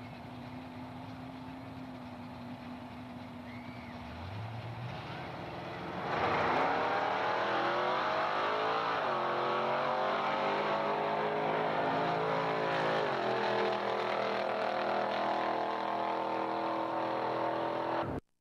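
Two drag-racing cars, one a 1968 Pontiac Firebird with its 400 cubic-inch V8, idling at the line with a rev, then launching and running flat out down the quarter mile. The engine pitch climbs, then drops at two gear shifts about two and a half and seven seconds after the launch. The sound cuts off abruptly near the end.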